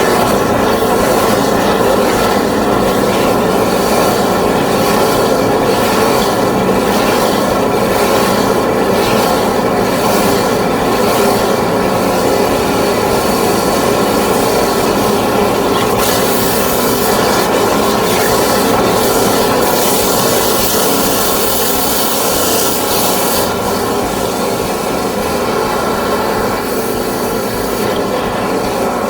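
High-pressure drain-cleaning jetter running steadily, a machine hum under the hiss of water jetting through the drain pipe. The hiss brightens for several seconds around the middle.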